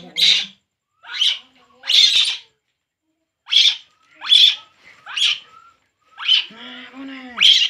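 Baby macaque crying: short, shrill, high-pitched cries about once a second, eight or so in a row, with a longer, lower wavering call near the end.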